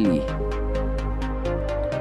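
Background electronic music with a steady beat and held synth tones.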